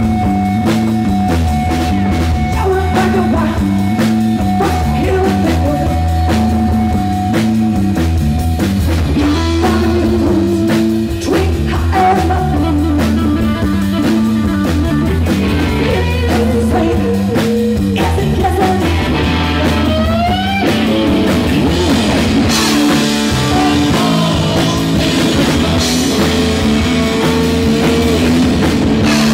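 Live rock band playing loud: electric guitar, electric bass and a drum kit, with a rising guitar glide about two-thirds of the way through and heavier cymbals after it.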